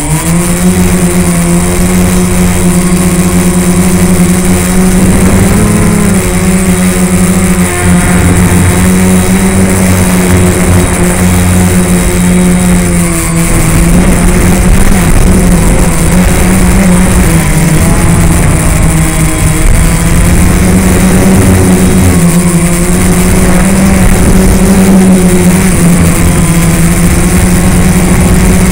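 Quadcopter's electric motors and propellers running loudly, heard from the camera on the craft: a steady buzzing hum whose pitch wavers slightly a few times as the craft holds its hover.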